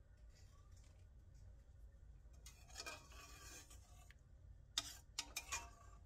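Metal spoon stirring mutton curry in a pressure cooker pot: a soft scrape about two and a half seconds in, then a few quick clinks of the spoon against the pot near the end.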